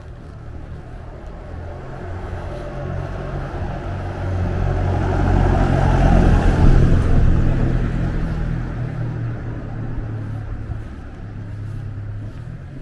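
A Mercedes-Benz V-Class van driving past close by, its engine and tyre noise swelling to a peak about halfway through and then fading as it goes away.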